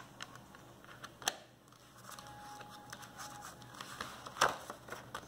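Handling of an open plastic DVD case and its paper insert: light rustling and scraping with scattered clicks, a sharper click about a second in and the loudest one about four and a half seconds in.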